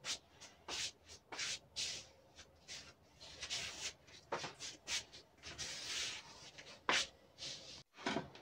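Rustling and brushing of fabric being handled, in quick irregular strokes, with a sharper click about seven seconds in.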